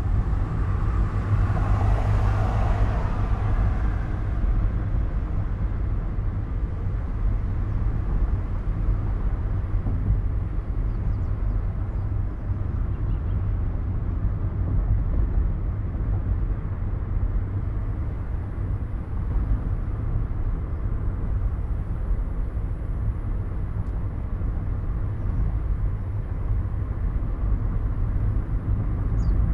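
Car driving along: a steady low rumble of engine and road noise, with a brief louder rush of noise in the first few seconds.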